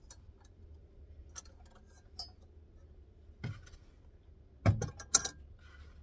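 Light clicks and taps of small objects being handled, then two sharp knocks a little under five seconds in as a small red lantern is set down.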